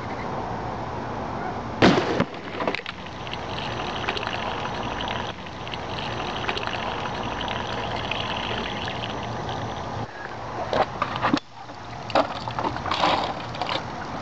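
One sharp crack about two seconds in, the shot of a Texan big-bore air rifle, over steady wind noise. From about ten seconds in come irregular knocks and rustles of the camera being picked up and handled.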